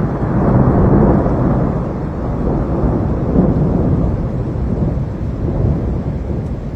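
Storm noise: a loud, dense, unpitched rumble, heaviest in the low end and fairly steady throughout.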